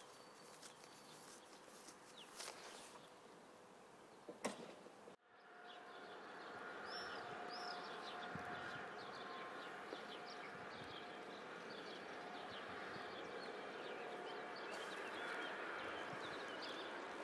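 Faint outdoor ambience: small birds chirping over a steady low hum. Two sharp knocks sound in the first five seconds, the second the loudest. At about five seconds the background drops out briefly and comes back a little louder.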